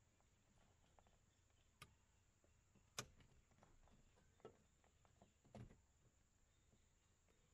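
A few faint plastic clicks and taps as the inner door handle bezel and door trim of a Toyota Corolla E110 are pressed into place, the sharpest about three seconds in.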